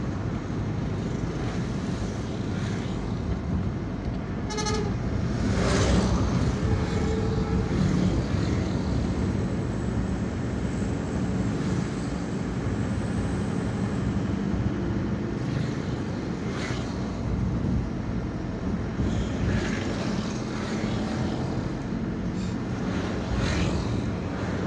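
Steady engine and road noise heard from inside a moving car. There is a short pitched beep about four and a half seconds in, and a few brief swells as other traffic passes.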